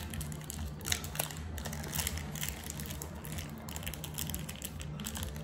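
Plastic wrapper of a gummy candy crinkling and crackling irregularly as a child works at tearing it open by hand.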